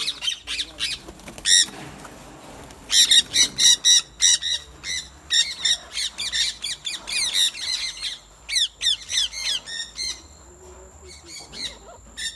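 A group of small parrots squawking and chattering: many short, shrill calls in quick runs, with a lull about two seconds in and a quieter stretch near the end.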